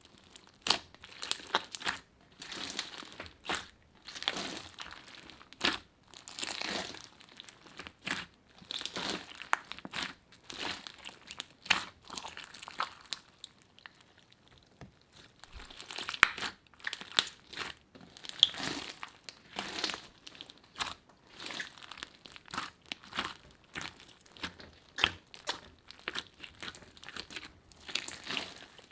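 Slime being worked by hand, squished and folded in irregular short crackling bursts, one or two a second, with a brief pause about halfway.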